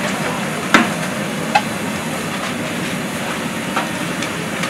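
Large aluminium stockpot of ox-blood soup at a hard boil: a steady rushing noise, with two sharp clinks of a metal ladle against the pot in the first two seconds.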